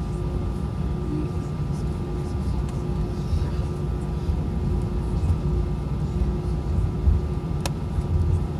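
Airbus A320 taxiing, heard from inside the cabin: a steady low rumble with a constant engine hum. A single sharp click near the end.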